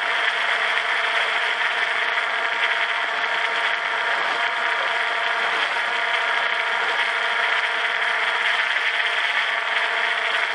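Quadcopter drone's electric motors and propellers whirring steadily in flight, recorded close up from the drone's own body: an even hum with several held tones over a hiss, unchanging throughout.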